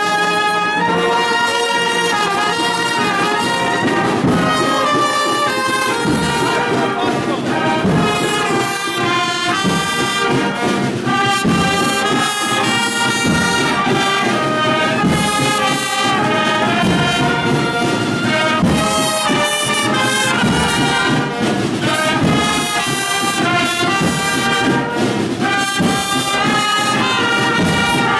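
Spanish processional marching band (agrupación musical) playing a Holy Week march: trumpets, cornets and trombones carry a slow melody in held notes over steady drum strokes.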